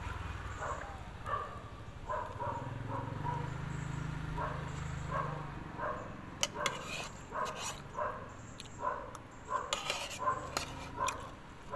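An animal calling in short repeated notes, about two a second. In the second half, sharp clicks of a metal spoon against a plate.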